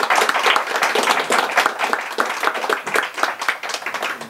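Small audience applauding with dense hand-clapping that thins out and fades toward the end.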